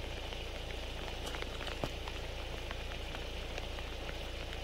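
Heavy rain falling steadily, with scattered sharp taps of drops striking close by, over a steady low rumble.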